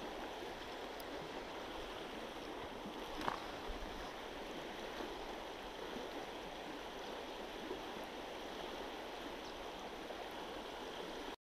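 River water rushing steadily, with one brief faint click about three seconds in.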